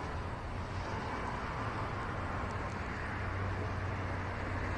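Steady hum of city street traffic, passing cars blending into one continuous low noise.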